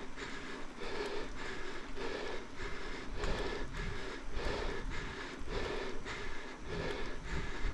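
A person breathing hard in a steady rhythm, about two breaths a second, with low wind rumble on the microphone.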